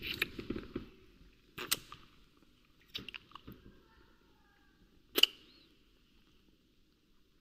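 Kissing: a handful of short lip smacks a second or two apart, the loudest about five seconds in.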